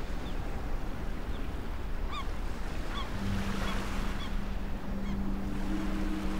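Seaside ambience: a steady rush of wind and surf, with a short run of bird calls about two to four and a half seconds in. A low steady tone comes in about three seconds in.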